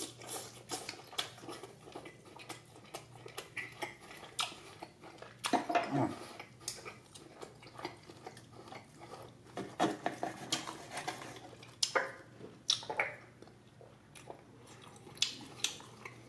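Knife and fork clicking and scraping on a plate while steak is cut, mixed with close-miked chewing of the steak. The clicks come irregularly, a little louder in a few clusters.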